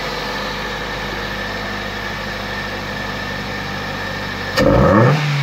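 Ford Focus Mk1 engine idling steadily through a freshly fitted open cone air filter, then revved sharply about four and a half seconds in, its pitch rising quickly and the intake getting much louder.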